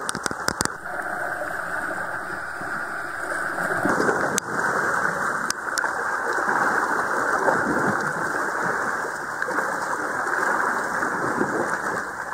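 Sea water washing against shoreline rocks, a steady rushing hiss, with a few sharp clicks in the first second and again around four to six seconds in.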